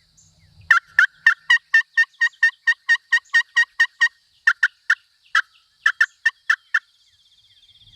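Turkey calling in hen turkey sounds: a fast, even run of short yelping notes, about five a second, for some three seconds. Slower, irregular notes follow.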